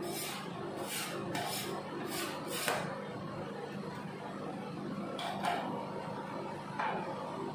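Two metal spatulas chopping and scraping crushed strawberry cake into cream on a stainless-steel rolled ice cream cold plate: a quick run of scrapes and taps in the first three seconds, then two more later. A steady low hum runs underneath.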